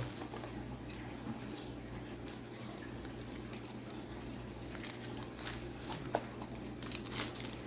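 Light, scattered clicks and rustles of a trading-card pack being opened and the cards handled, over a steady low hum.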